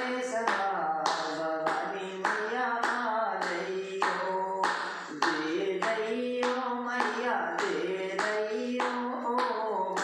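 A man singing a melody unaccompanied while clapping his hands in steady time, about two claps a second.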